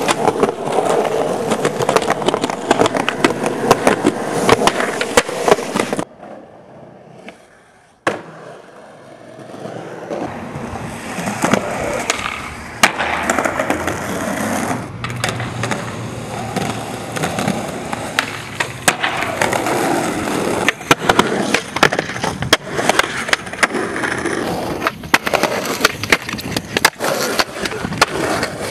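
Skateboard wheels rolling over concrete and asphalt, broken by many sharp clacks of tail pops, board slaps and landings. About six seconds in it drops quiet for a couple of seconds, then the rolling builds back up.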